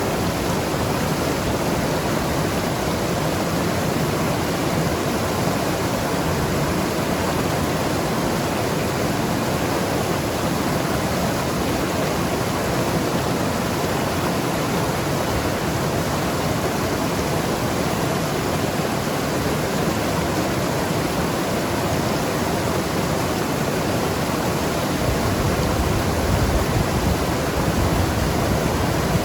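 Mountain river rushing and gurgling over rocks, a steady dense rush of water.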